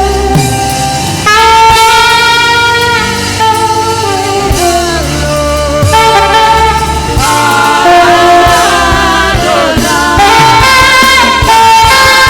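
Saxophone playing a gospel melody in long held notes, with a few bends and slides, over a backing band with a steady bass line.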